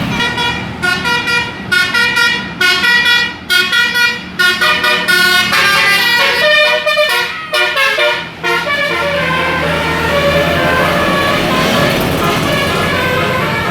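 Bus 'telolet' Basuri multi-tone horn playing a melody of short, quick notes that change in pitch for about eight seconds, then a steady low rumble with fainter horn notes over it.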